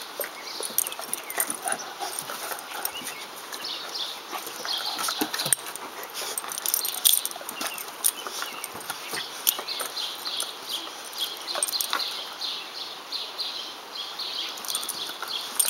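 A bloodhound and a black Labrador puppy play-wrestling on a wooden deck: scattered clicks and scuffles of paws and claws on the boards, with small dog vocal sounds.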